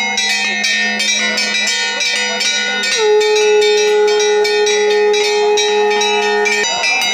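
Temple bells rung rapidly and continuously during a puja, strike after strike with ringing overtones, over a steady low hum. A single held tone sounds with them from about three seconds in until shortly before the end.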